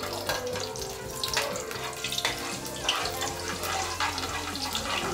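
Steel spoon stirring cumin seeds in hot oil in a stainless steel pan: a steady sizzle with repeated clinks and scrapes of the spoon on the pan.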